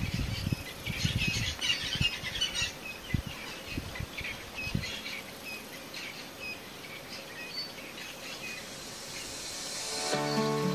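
Scattered short, high bird chirps in the bush, over low rumbling thumps that die away about five seconds in. Music fades in near the end.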